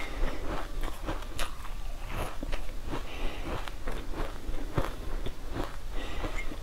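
Close-miked chewing of a crumbly green powder-coated sweet, with irregular crackling crunches several times a second, along with gloved fingers crunching through the dry green powder in a glass box.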